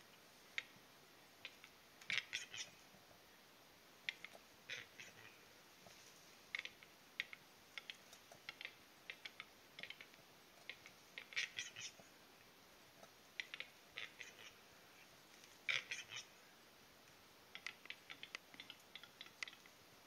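Male western capercaillie lek song: a scatter of dry clicks and short rasping bursts, with louder clusters about two seconds in, midway and about sixteen seconds in.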